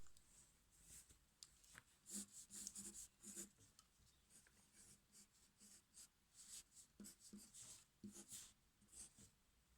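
Faint scratching of writing on paper, in short irregular strokes with a few soft taps.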